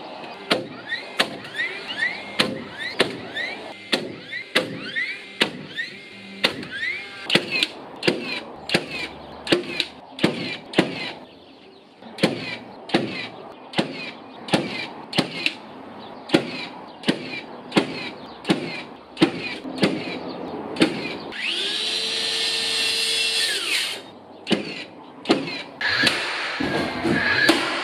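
DeWalt cordless nailer firing nails into timber deck joists in quick succession, about two shots a second, each shot with a short rising whine from the tool. Near the end a steady whine lasts about two seconds, followed by a few separate knocks.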